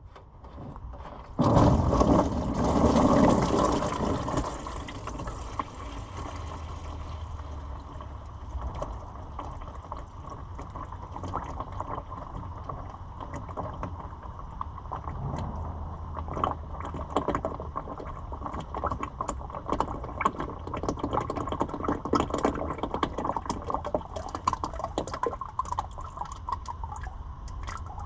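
Dirty oil mixed with water draining out of the compressor's gas engine crankcase into a pan. A strong gush starts about a second and a half in, then settles into a steady pouring stream with drips. There was a lot of water in the engine.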